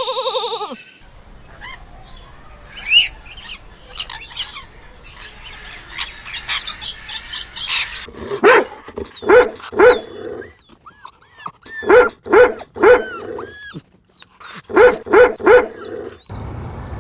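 A dog barking in three quick runs of three barks each, in the second half. Before the barking come several seconds of faint, high chirping.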